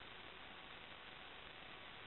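Faint, steady hiss of electrical line noise, with no other sound.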